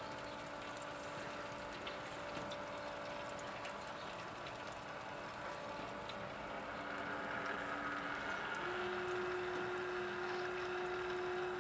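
Lynx gas grill running with its rotisserie turning: a steady hiss from the burners and a faint hum that steps up in pitch about eight seconds in.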